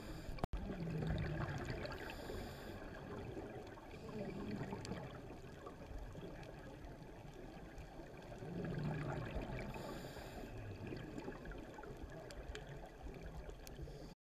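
Underwater sound of a scuba diver breathing: gurgling exhaled bubbles rising in slow swells every few seconds, with a short hiss twice, and a brief dropout about half a second in.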